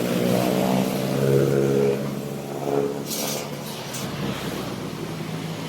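Hand tractor's engine running steadily, louder for the first two seconds and then easing to a lower level, with a brief hiss about three seconds in.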